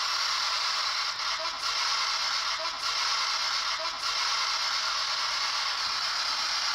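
P-SB7 spirit box sweeping through radio frequencies: a steady hiss of radio static broken by brief chopped fragments of broadcast sound, one of which the investigators take for the word "help".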